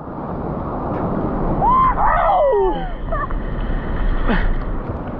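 Ocean surf: a wave rolling in and breaking, a rushing wash of water that builds over the first couple of seconds and stays loud, with a short wordless vocal exclamation about two seconds in.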